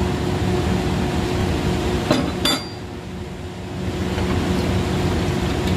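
Steady hum of factory machinery, with two sharp metallic clinks a little after two seconds in from a hand tool on the bolts that hold the machine's cutting blades. The hum dips briefly after the clinks.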